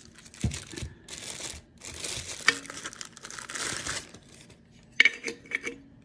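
Handling noise from a ceramic wax warmer and its dish being moved about: scratchy rustling for a few seconds, with several sharp knocks, the loudest about five seconds in as the dish is set into the side of the warmer.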